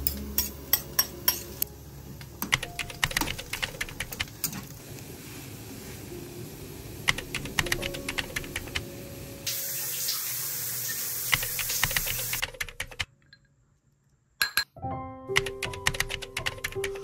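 A run of quick light clicks and knocks, then a kitchen tap running for about three seconds, under background music. The tap cuts off suddenly, and after a short silence only the music goes on.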